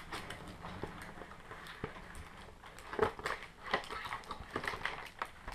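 Plastic wrapping crinkling and rustling, with irregular small crackles and clicks, as a wrapped pack of trading cards is worked out of a cardboard advent-calendar compartment; the loudest crackle comes about three seconds in.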